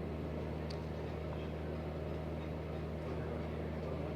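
A steady low hum at an even level, with a faint tick about two-thirds of a second in.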